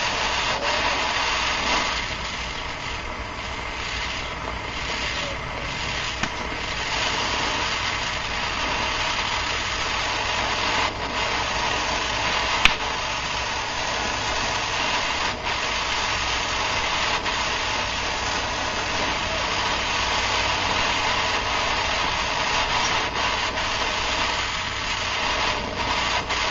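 Hand-held MAPP gas torch burning with a steady hiss as its flame heats a knife blade for differential tempering. A single sharp click about halfway through.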